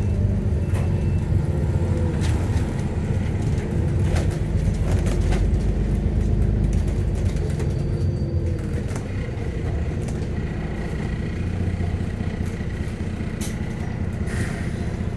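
Alexander Dennis Enviro400 MMC double-decker bus running, heard from inside the lower deck: a steady engine and drivetrain rumble with scattered interior rattles and clicks. It eases off slightly a little over halfway through.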